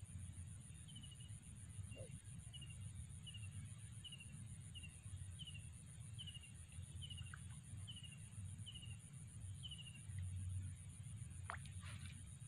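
A bird calling a short, falling note over and over, about one and a half notes a second, over a low, steady rumble. Near the end there is a brief rising sweep.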